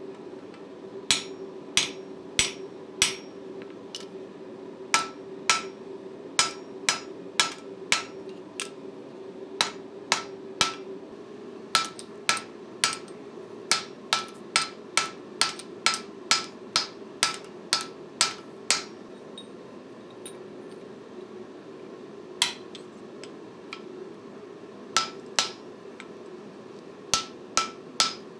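Hand hammer striking a steel punch, then a drift, driven through the eye of a red-hot axe head on an anvil. The blows come about two a second in runs, with a few short pauses, and each has a brief metallic ring.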